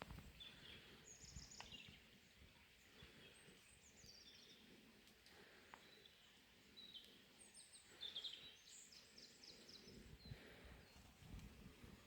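Birds chirping faintly: short high calls and trills of quick repeated notes, coming more often about eight seconds in.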